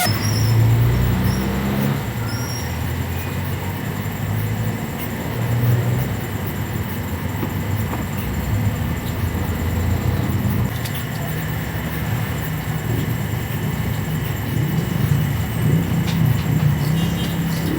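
Steady low rumble of motor vehicle engines and road traffic.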